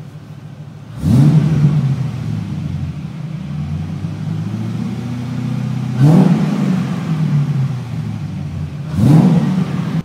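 LS1 V8 engine revved in a stationary car, heard from inside the cabin: three sharp throttle blips about one, six and nine seconds in, each climbing quickly in pitch and falling back, with a steadier raised rev held between the first two.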